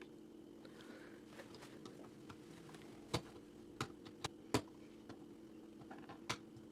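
Plastic Lego Technic pieces being handled and pressed together: a handful of sharp little clicks, scattered over the second half.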